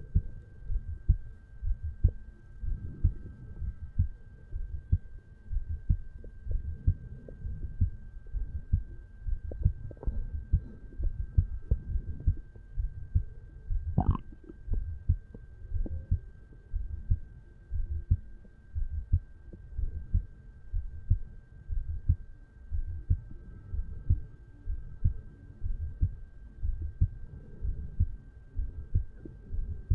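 Human heartbeat of a resting adult man, picked up over the mitral valve area of the chest: a steady, regular lub-dub rhythm of low thumps. A brief higher-pitched squeak comes about halfway through.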